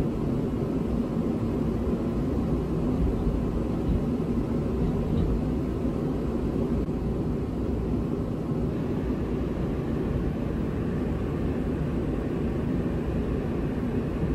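Steady low rumble of a semi truck's diesel engine running at idle, with a faint steady hum.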